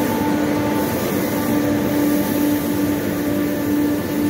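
Sawmill line machinery running: a steady mechanical din from the chain conveyors and their drives, with a constant hum.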